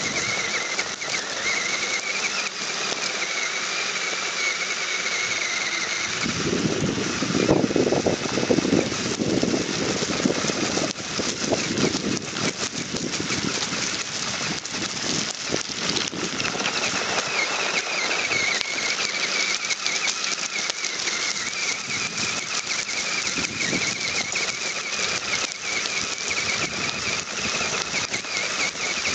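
RC crawler's motor and gears whining as it drives, the pitch wavering with throttle, over the crunch and rattle of its tyres and chassis on gravel. The rattling and crunching get louder and rougher for several seconds in the middle.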